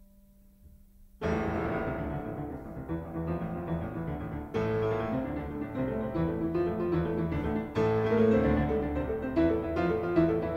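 Background classical piano music: after faint held tones, it comes in loudly about a second in with dense chords and runs of notes.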